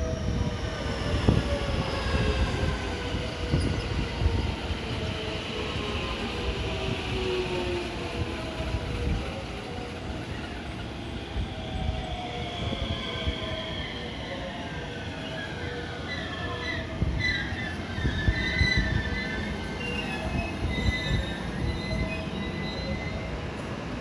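JR West 225 series electric train pulling into a station and braking to a stop. Its motor whine falls in pitch as it slows, and high brake and wheel squeals come near the end.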